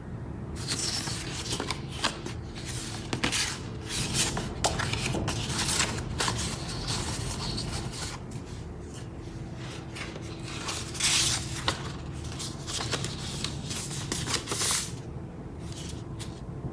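Packaging being handled and opened: paper or plastic rustling and scraping in quick, irregular strokes that stop near the end, over a steady low hum.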